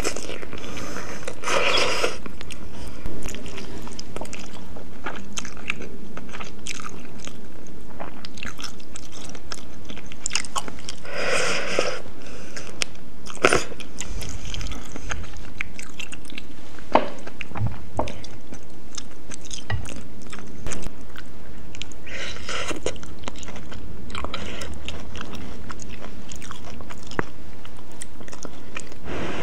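Close-miked eating of noodles with chicken and snow fungus: continuous wet chewing with crunchy bites and a few sharp clicks, broken by longer bursts of slurping about two seconds in, around eleven seconds and again around twenty-two seconds.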